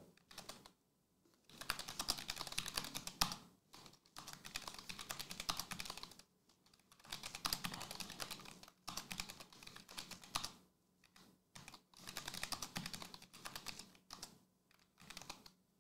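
Computer keyboard typing: quick runs of key clicks in bursts of a second or two, with short pauses between them.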